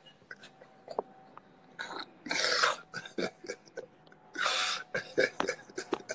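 A man laughing breathily in short, airy bursts, the two loudest about two and a half and four and a half seconds in.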